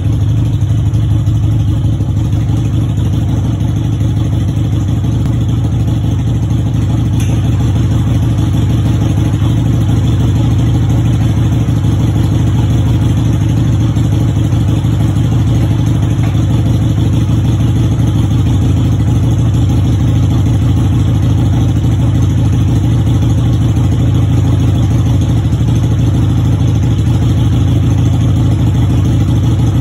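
A steady, unchanging low mechanical drone with a fine rattly texture, loud throughout.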